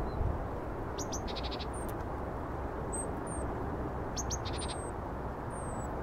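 Small songbird calls: two short bursts of quick ticking notes and several thin, very high whistled notes, some falling in pitch. They sound over a steady low background rumble.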